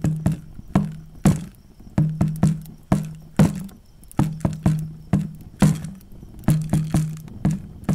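Percussion intro music: a low-pitched drum struck in an uneven rhythm, about two to three hits a second, each hit ringing briefly.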